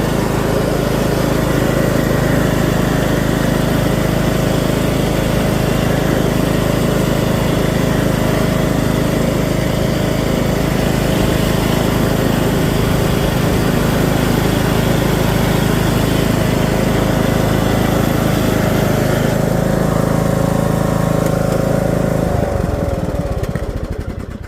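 Husqvarna riding lawn mower engine running steadily, then shut off near the end and winding down to a stop.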